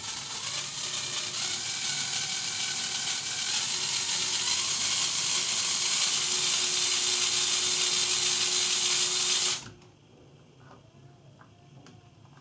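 Lego Power Functions electric motors driving a Technic Unimog's gear train, running with a steady whirr. The whirr grows louder over the first few seconds as the remote's speed is stepped up, then runs steadily until it cuts off suddenly near the end. A few faint clicks follow.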